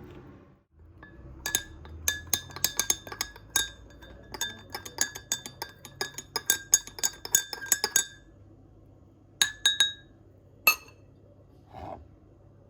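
Spoon stirring in a glass, clinking quickly and repeatedly against the sides for about six seconds, each clink ringing at the glass's pitch. A few more clinks follow near the end.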